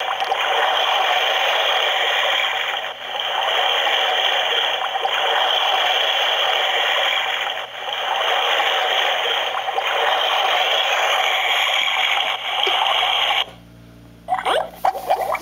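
LED alarm clock's small speaker playing a steady rushing hiss that cuts off abruptly near the end, followed after a brief gap by a run of quick rising chirps.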